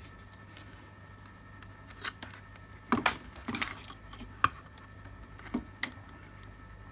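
Scattered small clicks and taps of hard objects being handled on a workbench, as a circuit board and small tools are worked on, with a faint steady hum behind.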